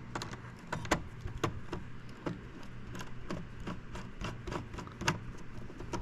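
A screwdriver tightening a wire terminal screw on a power supply's terminal block: small, irregular metal clicks and taps, over a low steady hum.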